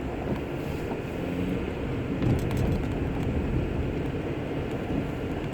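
Car cabin noise while driving at low speed: a steady low rumble of engine and tyres on the road, with a few faint clicks near the middle.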